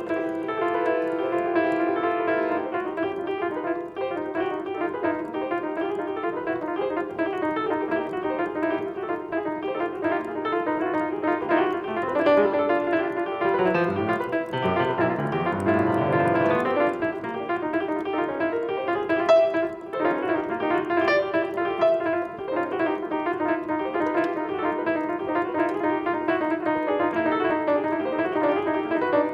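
Solo piano playing a dense, continuous stream of notes in the middle and upper range, with lower bass notes joining in for a few seconds around the middle.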